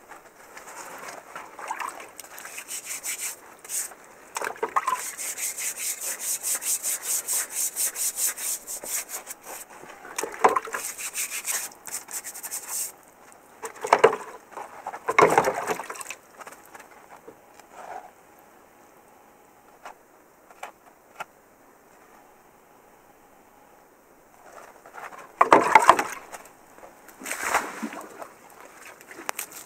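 Rapid, rhythmic scraping of mud off a dug-up relic by hand, several strokes a second for the first dozen seconds. Later come a few sharp knocks and clunks as the object is handled.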